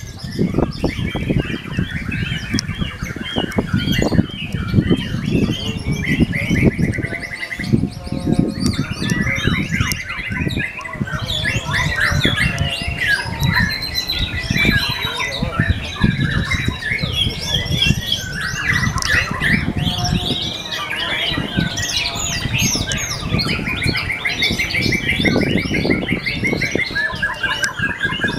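A caged white-rumped shama singing a long, varied song of whistles, chatter and fast rattling trills, with hardly a pause, over a low rumbling background.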